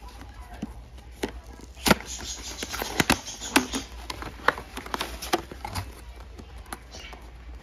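Cardboard box being opened and a plastic clamshell package slid out and handled: rustling and crinkling with a series of sharp clicks and taps, busiest in the middle.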